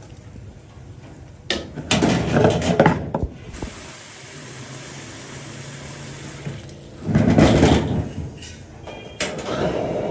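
Water running and splashing, as from a tap or being poured, with two louder gushes about two seconds in and around seven seconds.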